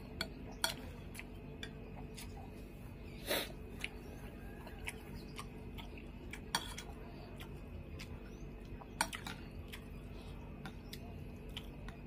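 Metal spoon clinking and scraping against a ceramic bowl of rice and vegetables: scattered light taps, with a few sharper clinks several seconds apart, over a low steady hum.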